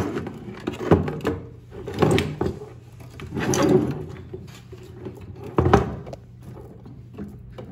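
Handling noise of cables and connectors being worked on a PC motherboard: a few sharp knocks and clicks with short rattles between them, over a faint steady low hum.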